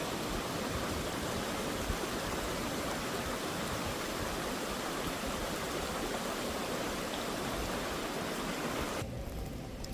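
Steady rushing of running water from a creek. About nine seconds in it cuts off abruptly, giving way to a quieter background with a few light clicks.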